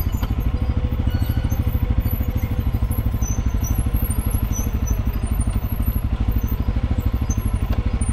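Quad bike (ATV) engine running steadily at low revs with an even, low pulsing beat and no revving.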